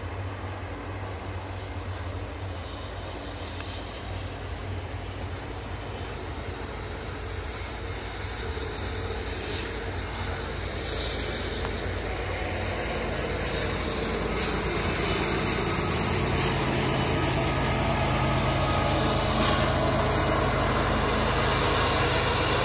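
Double-stack intermodal well cars rolling past with a steady clatter and rumble of steel wheels on rail. Over the last several seconds a GE ES44AC rear distributed-power diesel locomotive approaches, and the steady hum of its engine grows louder, covering the wheel noise.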